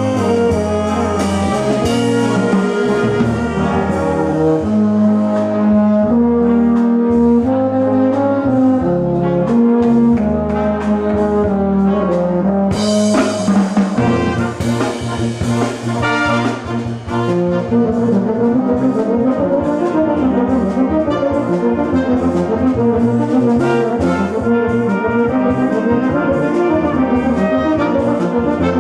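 A wind band playing, with a tuba soloist standing out front over the band. About halfway through, the held notes give way to a busier accompaniment with a steady beat of short crisp strokes.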